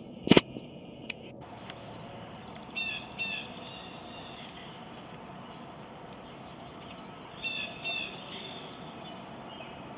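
Birds chirping in short clusters of quick high notes, about three seconds in and again near eight seconds, over a steady outdoor background hiss. A sharp click right at the start is the loudest sound.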